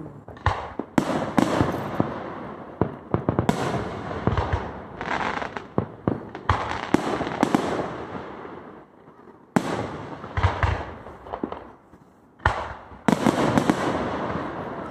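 Aerial fireworks shells bursting in quick succession, a string of sharp bangs with brief lulls around the middle and a dense run of bangs near the end.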